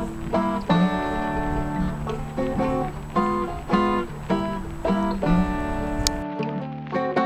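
Background music: a plucked-string tune of picked notes, with a low rumble under it that cuts off suddenly about six seconds in.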